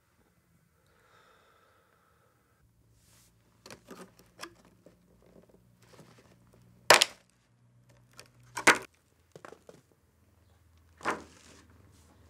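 Clear plastic clamshell pastry box being handled and pried open: small plastic clicks and crackles, then two loud sharp snaps about seven and nine seconds in as the lid's catches pop, and one more snap near the end.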